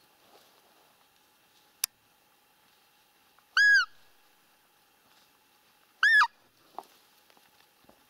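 Roe deer mouth call blown twice: two short, loud, high peeps that rise and fall in pitch, imitating a doe to draw in a rutting roebuck. A single sharp click comes a couple of seconds before the first peep.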